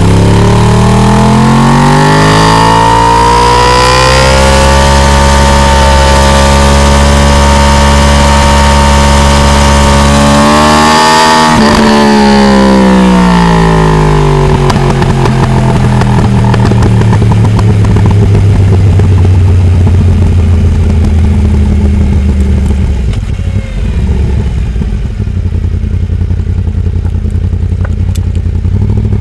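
Yamaha R1 crossplane ('big bang') inline-four engine on a hard ride. The revs climb, hold high, peak a little before halfway and fall away, then run lower and rougher through the second half, with a brief dip in level a few seconds from the end.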